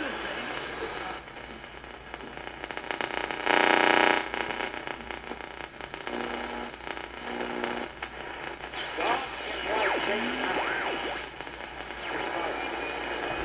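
Commodore EB2500 solid-state radio's speaker hissing and crackling with AM-band static as it is tuned across the band. A loud burst of noise comes about four seconds in, and in the second half whistles glide up and down in pitch.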